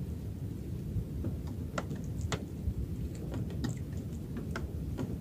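Steady low wind rumble with scattered light clicks and knocks from a small wooden fishing boat as a handline is worked.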